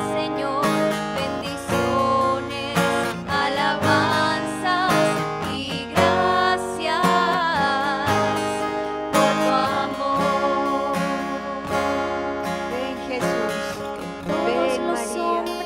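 Soft worship music: a strummed acoustic guitar with a voice singing along.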